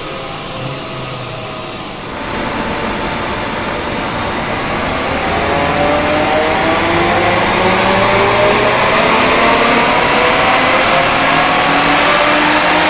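A VW Golf GTI Mk8's 2.0-litre turbocharged four-cylinder engine pulling hard under load on a chassis dyno. For about the first two seconds it holds a steadier drone; then the engine note rises steadily in pitch and grows louder as the car accelerates on the rollers.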